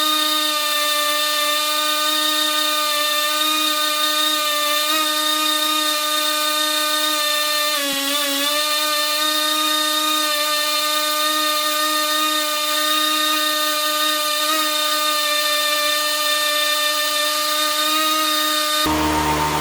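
Small electric power-tool motor running at a steady high speed, with a brief dip in pitch about eight seconds in. Near the end it cuts off and a different, lower hum takes over.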